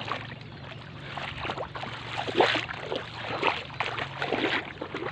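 Water sloshing and splashing in short, irregular bursts over a steady low hum.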